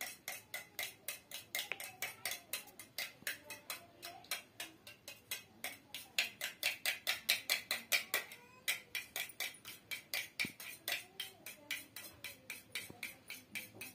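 A spoon beating raw eggs in a stainless steel tumbler, clinking rapidly against the metal sides about five times a second, with a brief pause about eight and a half seconds in.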